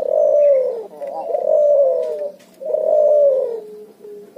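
Cuhu, a hybrid of a ringneck dove and a spotted dove, cooing: three long, low, wavering coos, each about a second long, with short pauses between them.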